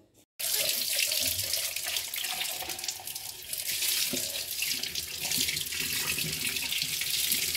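Tap water running and splashing over a clear plastic food container as it is rinsed by hand, starting suddenly a moment in.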